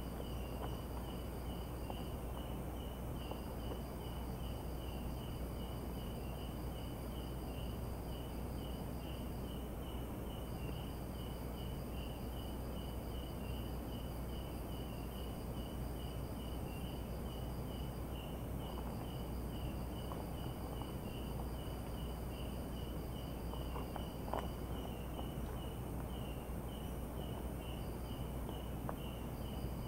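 Night insects, crickets among them: one chirps in a steady quick pulse while another trills in runs of several seconds that stop and restart, over a constant high whine and a low steady hum. A single faint tap comes about three-quarters of the way through.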